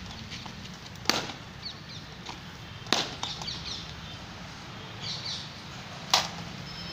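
Three sharp single impacts about two seconds apart, spaced out by longer gaps: a quarter guard's drill movements struck in unison.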